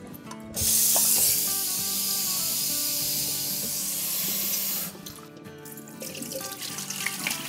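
Kitchen tap running into a saucepan of boiled eggs, rinsing them in cold water. The tap stops about five seconds in, and the water is then poured out of the pan into a stainless steel sink.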